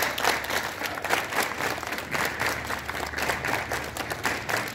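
A group of schoolchildren clapping their hands, many quick claps overlapping into a continuous patter.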